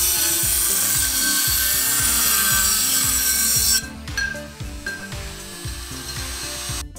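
Dremel rotary tool's cut-off wheel grinding through a tin tomato paste can, a loud, high-pitched grinding that stops abruptly just under four seconds in. Background music with a steady beat runs underneath.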